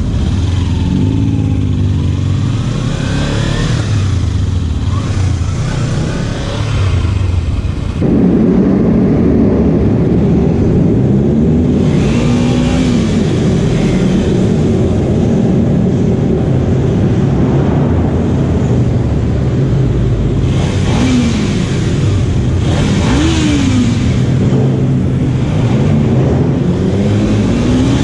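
Kawasaki Ninja 300's parallel-twin engine running under way, its revs climbing and dropping back several times. It gets louder about eight seconds in.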